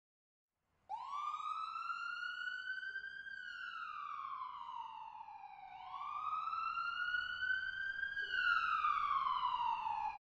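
Emergency vehicle siren in a slow wail. It starts about a second in, rises and falls twice over several seconds each time, and cuts off abruptly just before the end.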